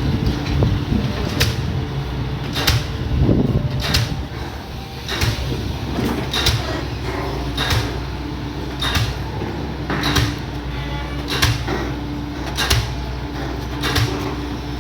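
Excavator's diesel engine running steadily, with sharp clicks or knocks about once a second.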